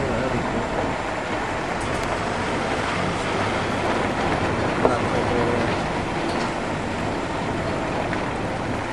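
Steady rumble and rattle of a vehicle driving along a rough track, with no change in pace.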